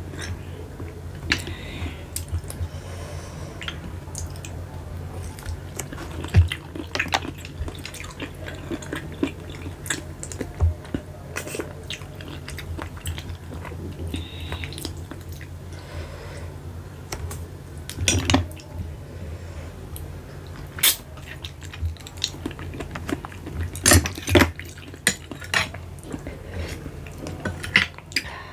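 Close-up eating sounds: sea snail shells clicking and clinking against a glass bowl while a spoon scrapes it, with wet chewing in between. A steady low hum runs underneath.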